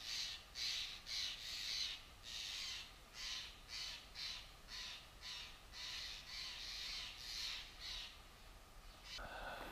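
Birds calling in agitation: a string of short, harsh calls, about two a second, that stop a second or so before the end.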